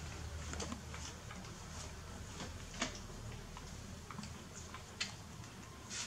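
Faint scattered clicks and ticks over a low steady hum, with two sharper clicks about three and five seconds in.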